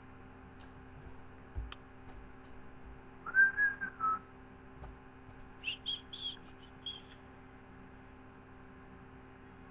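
Whistling: one note that rises and falls, about three seconds in, then four short higher chirps a couple of seconds later.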